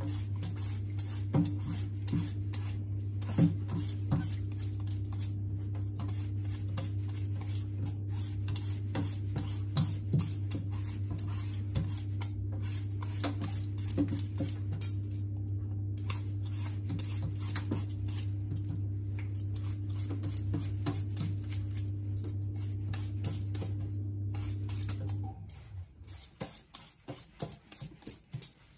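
Raw mango being peeled in quick repeated scraping strokes, with peel strips dropping onto a stainless steel sink. A steady low electrical hum runs underneath and cuts off suddenly about 25 seconds in.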